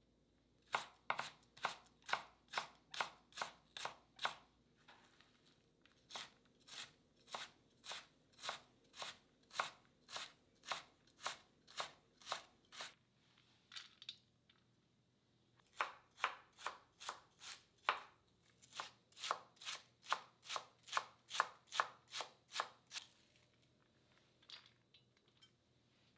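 Chef's knife chopping carrot and then celery into small dice on a cutting board: crisp, even strikes about two a second, in three long runs broken by short pauses.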